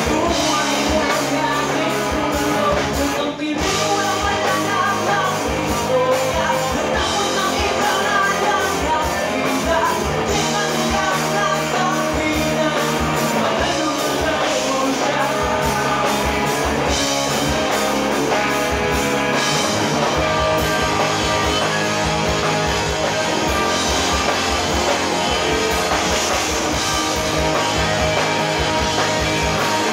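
Live rock band playing: a male singer over electric guitars, bass and a drum kit. The band cuts out for an instant about three seconds in.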